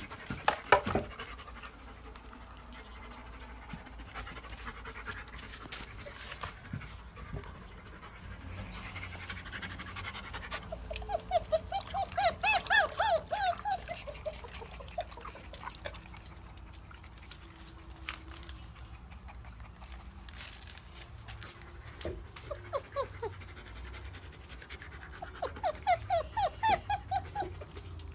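German Shepherd puppies at four weeks old give quick runs of short, high-pitched whining calls, about six a second. There is one run near the middle and another near the end, with a few knocks in the first second.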